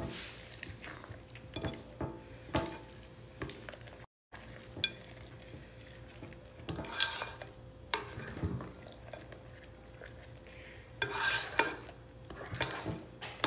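A spoon scraping and tapping against a glass mixing bowl while folding thick banana bread batter, with several sharp clinks scattered through.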